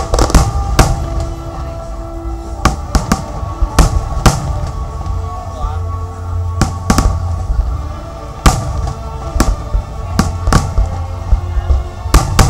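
Fireworks shells bursting in an irregular string of sharp bangs, over loud music with a heavy bass playing through the show's sound system.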